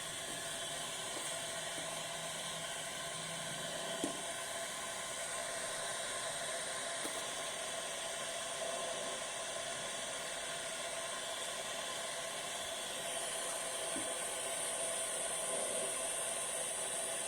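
Breathing machine's blower running at a 22 cmH2O pressure setting, with air rushing from its open outlet because no elbow connector is fitted. It makes a steady hiss with a faint whine in it, and grows slightly louder about two-thirds of the way through.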